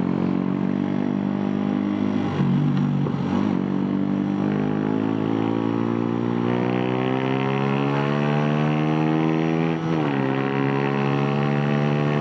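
Suzuki Raider 150 carburetted single-cylinder engine running through an open Apido exhaust pipe with no silencer, the bike accelerating. The engine note climbs steadily for several seconds, drops sharply at a gear change about ten seconds in, then starts climbing again.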